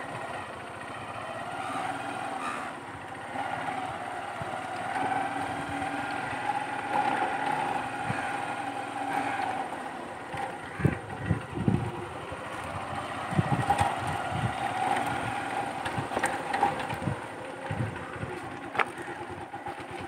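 A steady motor drone, like a distant engine, with a run of low thumps in the second half.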